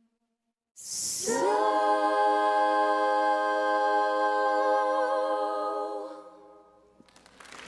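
Unaccompanied female singing voice holding one long final note with a slight vibrato, starting about a second in and fading away at the close of the song. Audience applause begins right at the end.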